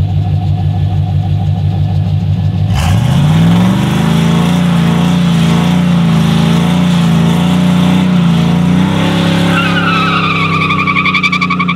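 Chevy drift truck with a welded rear differential: the engine idles, revs up sharply about three seconds in and holds high, wavering revs. Near the end the tires squeal as the rear breaks loose.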